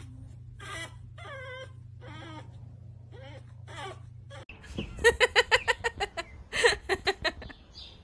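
Pug puppy whimpering: short, high, wavering whines about one a second. About halfway through, a louder rapid run of short pitched sounds, about six a second, takes over.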